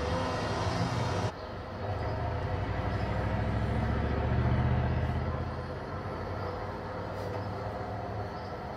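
A motor vehicle's engine running with a steady low rumble that swells about four seconds in and then eases off. The higher sounds drop away abruptly just over a second in.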